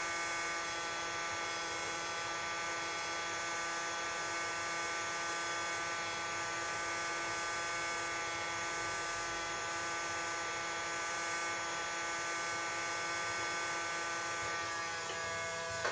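Cheap hot air rework gun running steadily: its fan gives a constant whine of several fixed tones over a rushing hiss of air as it blows hot air onto a circuit board to melt the solder on surface-mount parts.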